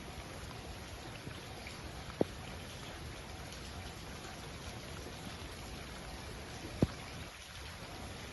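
Steady low hiss of outdoor background noise, with two sharp taps: one about two seconds in, the other about four and a half seconds later.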